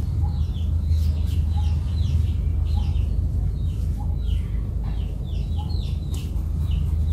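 Birds calling in many short, repeated falling chirps over a steady low hum.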